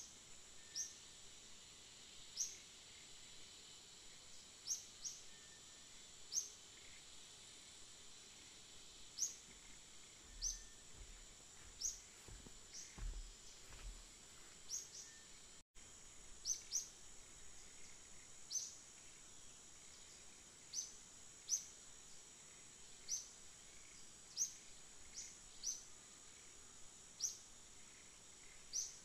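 Quiet tropical forest ambience: a steady high-pitched insect drone, with short rising bird chirps repeating every second or two.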